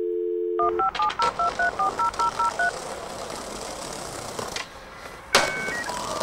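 Telephone dial tone for about half a second, then a quick run of about ten touch-tone keypad beeps as a number is dialed. A hiss follows, and a sharp click comes about five seconds in.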